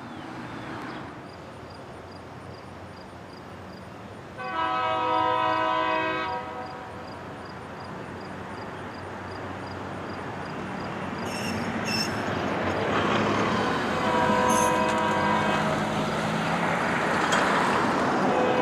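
Locomotive air horn sounding a chord: one blast of about two seconds, then a longer blast several seconds later. The rumble of the train grows louder underneath the second blast as the rail grinder train approaches.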